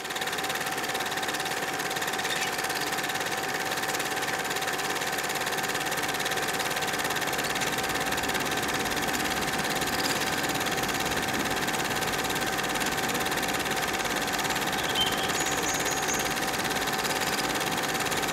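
Steady mechanical running noise with a constant whine, even throughout.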